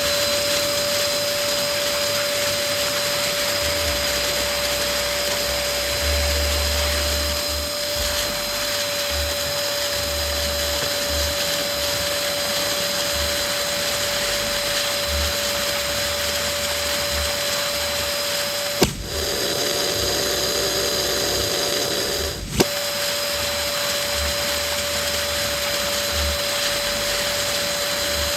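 Electric balloon pump running steadily with a constant motor whine and hiss. About two-thirds of the way in, a sharp click, then a few seconds of a lower-pitched tone, ended by a second click before the original whine returns.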